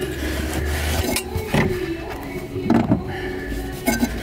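Gloved hand handling the rubber air intake hose and the plastic parts around it in a diesel engine bay: rubbing and scraping with several irregular knocks, over a low steady rumble.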